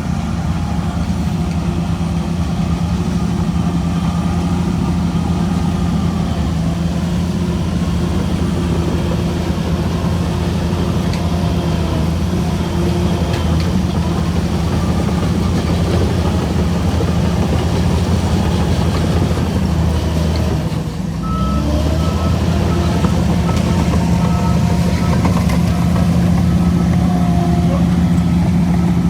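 Shantui DH17C3 bulldozer's diesel engine running steadily under load as it pushes soil. About two-thirds of the way through, the engine note dips briefly, then a reversing alarm beeps repeatedly for several seconds.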